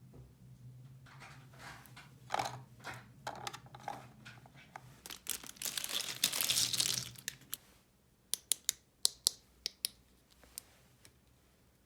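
Plastic toy packaging crinkling and tearing as it is handled and opened, loudest about six seconds in, followed by a quick series of sharp plastic clicks as small toy pieces are handled.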